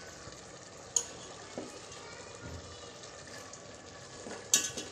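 Cut flat beans being added by hand to a pressure cooker of simmering gravy: faint bubbling and wet liquid sounds, with a sharp click about a second in and a louder clatter near the end.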